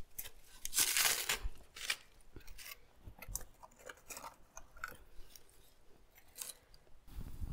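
Dry tree bark being snapped and crumbled by hand, with a loud crunching crackle about a second in. Scattered light clicks and knocks follow as pieces of bark and wood are laid on the firewood in a brick hearth to feed a small new fire.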